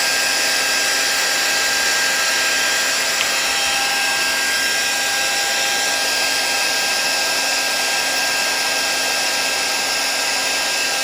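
Electric heat gun running steadily, a constant blowing hiss with a fixed whine, shrinking heat-shrink tubing to seal the contacts on small momentary switches.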